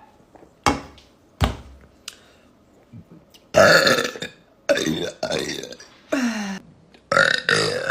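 A woman burping loudly several times in a row, about five long belches starting about three and a half seconds in, one sliding down in pitch. Two sharp clicks come before them.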